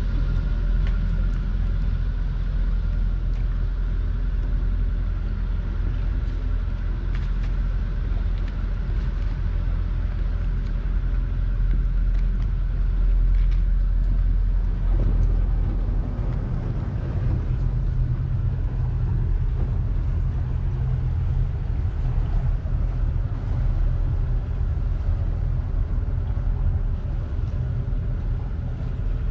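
A boat's engine running steadily under way: a continuous low rumble with steady engine tones, the low end growing a little fuller about halfway through.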